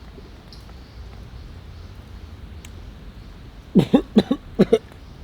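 A man coughing in a quick run of about five coughs near the end, then once more, over low steady background noise.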